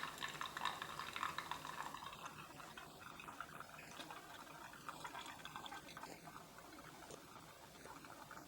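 Hot coffee trickling and dripping from a strainer basket of grounds into the glass pot below, fainter after the first couple of seconds as the flow slows.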